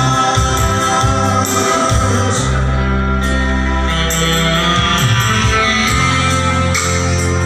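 Electronic keyboard playing an instrumental break in a slow Indonesian pop song, with sustained bass notes and chords over a steady accompaniment.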